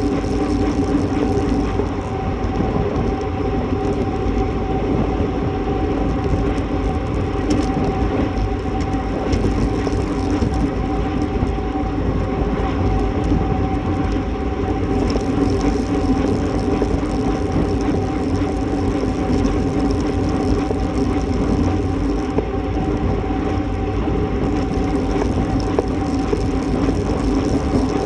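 Steady wind rush and tyre noise on a road bike's camera microphone, riding at about 28 mph, with a constant low hum running underneath.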